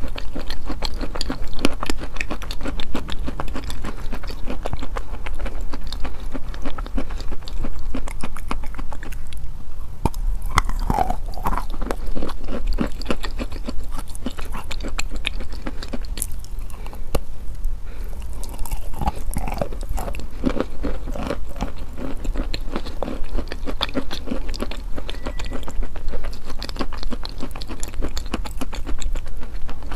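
Wet chalk being bitten and chewed right at a lavalier microphone: a continuous stream of moist crunching and crackling.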